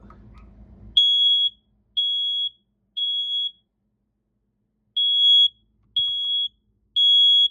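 Smoke alarm sounding on test: loud, high-pitched steady beeps of about half a second each, three in a row, a longer pause, then three more (the temporal-three alarm pattern), starting about a second in.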